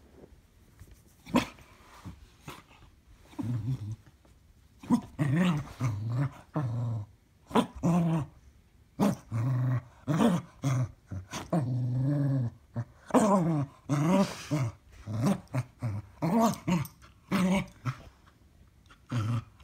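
Dog growling in a long series of short bouts with brief pauses between them, beginning a few seconds in.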